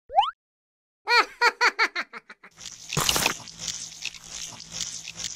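Cartoon sound effects: a quick rising whistle, then a fast run of high, giggle-like chirps that fade out. After that comes a rustling crunch with one sharp crunch about three seconds in, as the cookie is eaten.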